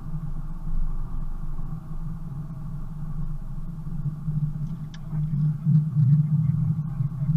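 Car engine and tyre noise on a packed-snow road, heard from inside the cabin: a steady low drone that swells about five seconds in, with a few faint clicks around the same time.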